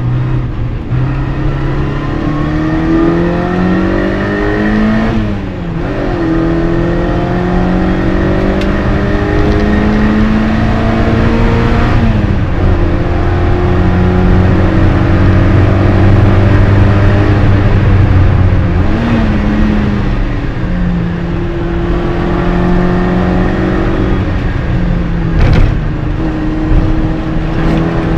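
MG Midget race car's four-cylinder engine heard from inside the cockpit under hard acceleration, its pitch climbing and dropping back sharply about four times as the driver changes gear. A sharp knock sounds near the end.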